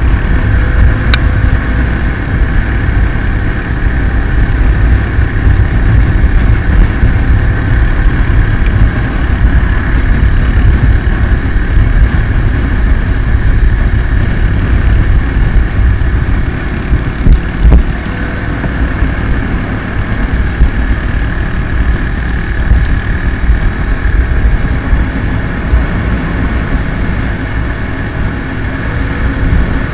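Honda MSX motorcycle's single-cylinder engine running at a steady cruise, under heavy wind rumble on the bike-mounted camera's microphone. A short knock a little past halfway.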